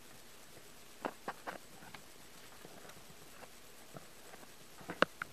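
Soft taps and clicks of a polydactyl cat's paws and claws on a table close to the microphone: a quick run of three about a second in, a few scattered taps, and two sharp clicks near the end, the first the loudest.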